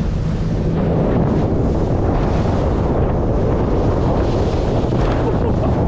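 Wind buffeting the microphone on a small outboard-powered boat running at speed, with the rush of water and wake around the hull and the outboard motor's steady drone underneath.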